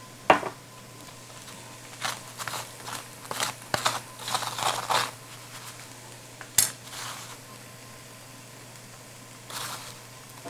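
Light clinks, taps and rustles of a measuring spoon, spice containers and a plate on a kitchen counter as seasoning is sprinkled over sliced tofu. The clicks come in a cluster through the first half, with one sharper click about six and a half seconds in and a soft rustle near the end.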